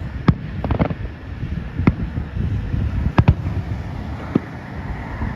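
Fireworks going off at irregular intervals: several sharp bangs, with a quick cluster about a second in and two close together past the middle, over wind rumbling on the microphone.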